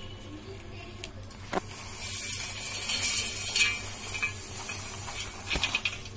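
Dry-roasted peanuts, seeds and spices being tipped from a foil tray into a grinder jar: a knock about a second and a half in, then a rustling, hissing pour with small clicks for about four seconds.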